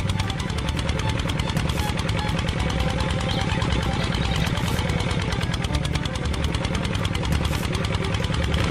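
Engine running steadily with a fast, even chugging rhythm, the engine sound of a miniature stationary engine that is belt-driving a toy flour mill.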